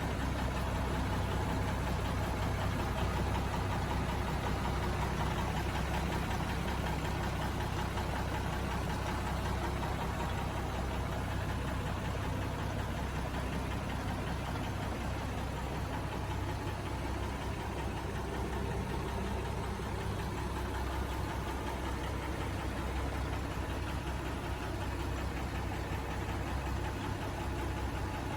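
Mercedes-Benz Unimog 406's six-cylinder diesel engine idling steadily, with a diesel knock, while it drives the PTO-powered air conditioner.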